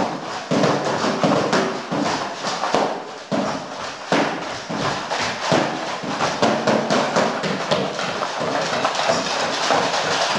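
Fast, uneven drumming on a homemade drum kit of cardboard boxes: a continuous stream of dull knocks and thuds, several strikes a second.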